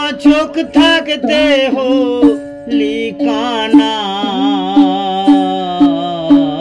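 Background music: a sung melody over a steady drone and plucked strings, with a long held note from about halfway.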